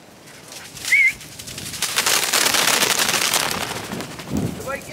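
Rooster ring-necked pheasant flushing from brush, its wings beating in a rapid whirr for about two seconds. Shortly before, about a second in, there is a short high-pitched chirp.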